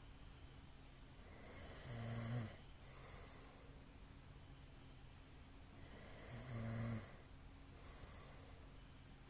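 A middle-aged man snoring in his sleep: two loud, low buzzing snores about four and a half seconds apart, each followed by a breathy hiss.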